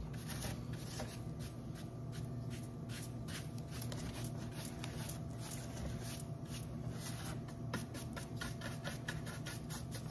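Dry flat paintbrush brushing over a chalk-painted plastic pumpkin in many quick, short strokes, dusting off baking soda to give an aged terracotta look.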